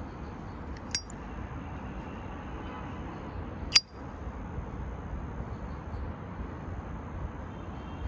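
Two sharp metallic clicks from a Zippo Windproof lighter's hinged steel lid, about three seconds apart, each with a brief bright ring.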